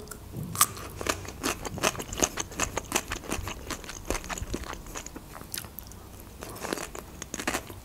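Close-miked chewing of crisp raw cucumber sticks: a run of wet crunches and mouth clicks, several a second.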